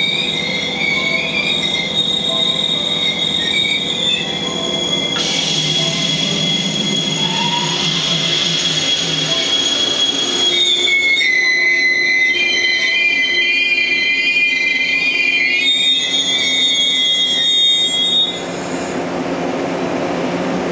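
JR West 115-series electric train rolling along the platform, its wheels squealing on the rail in high, steady tones over the running noise of the cars. Midway the squeal gives way to a hiss, then returns with several tones at once and drops away near the end.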